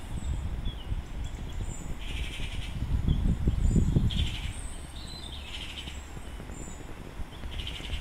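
Birds calling outdoors over wind rumbling on the microphone: short harsh calls come every second or two, with thin high chirps between them. The wind rumble swells about three to four seconds in.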